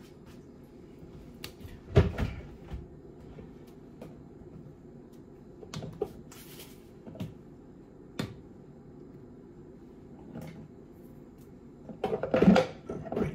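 Kitchen cupboard doors knocking and clicking open and shut every few seconds, with a louder clatter near the end, over a low steady room hum.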